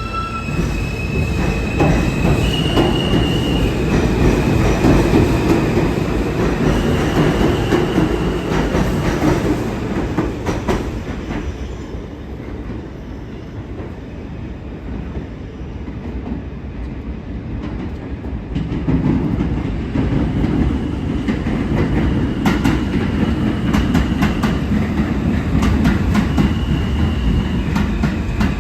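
New York City Subway R160 train running on the rails: a heavy rumble with wheel clatter and intermittent high-pitched wheel squeal. It eases off for several seconds in the middle, then builds back up as train noise returns.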